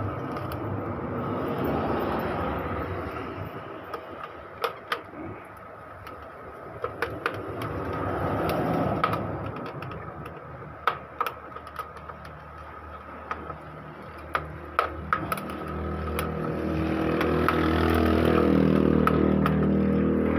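Sharp plastic clicks and knocks, scattered through the middle, as the Epson L3110 printer's plastic paper tray and parts are pressed back into place. Behind them a motor vehicle's engine swells past twice, loudest near the end.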